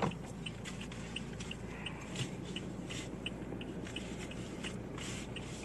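Car's turn-signal indicator ticking steadily, about three ticks a second, over the low hum of the engine running inside the cabin.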